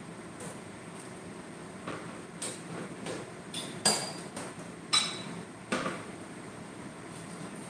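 Several sharp clinks and knocks of dishes and kitchen utensils, a second or so apart, the loudest a few seconds in, over a steady background hiss.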